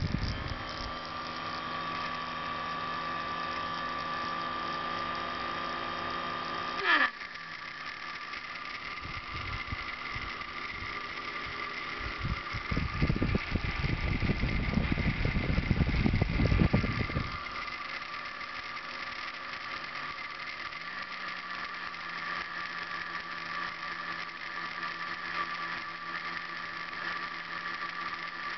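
Small brushed DC motor with a propeller on its shaft, running with a steady whine under speed control from a Bluetooth motor-driver board. About seven seconds in it cuts off and winds down with a falling pitch, as when it is braked or stepped to another speed, then runs steadily again. A stretch of low rumbling in the middle.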